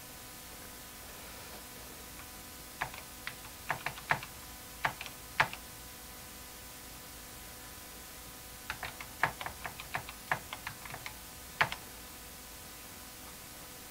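Keys of a 1982 Apple IIe keyboard clicking as two short lines are typed, in two bursts of keystrokes, the first starting about three seconds in and the second about nine seconds in. A faint steady hum sits underneath.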